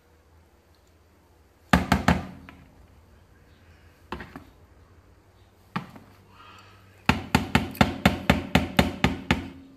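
A metal spoon stirring vegetable puree in a plastic bowl, knocking against the bowl in a fast even run of about five knocks a second near the end. A short cluster of sharp knocks about two seconds in and a couple of single knocks come before it.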